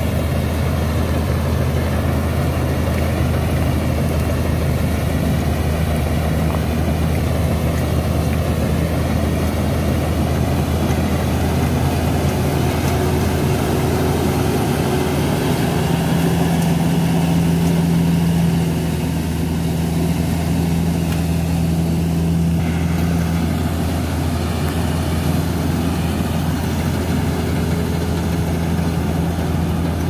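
Tractor engine running steadily while driving a straw reaper that chops wheat stubble into bhusa and blows it through a pipe into a trolley. It is a continuous low drone, with a higher hum that grows stronger for several seconds midway.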